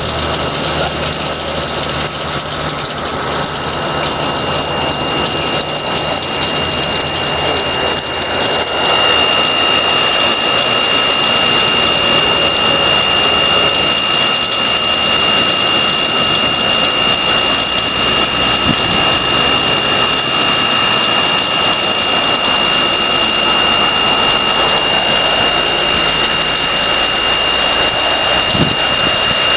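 Gen-Aer airlift aerator running: a loud, steady mechanical drone with a thin, high whine, over churning water. About nine seconds in it gets a little louder and the whine comes through more strongly.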